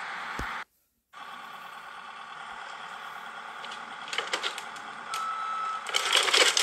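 Heavy demolition machinery running steadily, with clattering and rattling building up near the end and a steady beeping tone from about five seconds in. The sound cuts out briefly about a second in.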